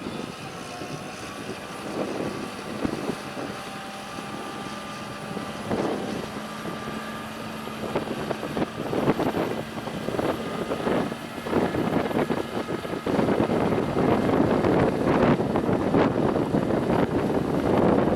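John Deere 7230R tractor's six-cylinder diesel engine running steadily under load while pulling a six-furrow mouldboard plough, with gusts of wind on the microphone. It grows louder in the second half.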